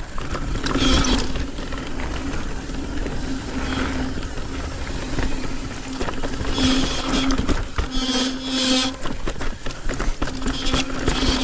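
Mountain bike riding down a loose, rocky dirt trail: tyres rumbling over dirt and rocks, with wind noise on the microphone. A steady buzz comes and goes, and there are several louder scraping bursts.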